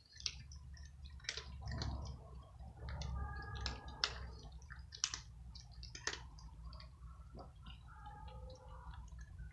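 Cats crunching dry kibble: irregular wet clicks and crunches of several cats chewing at once. A faint pitched call sounds briefly twice, around the middle and near the end.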